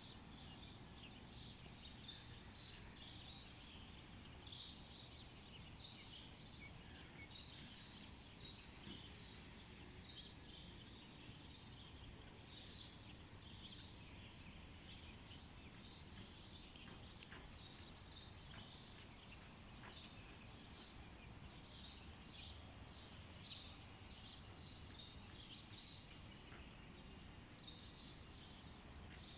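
Faint birds chirping over and over, in short quick calls, over a low steady outdoor background noise.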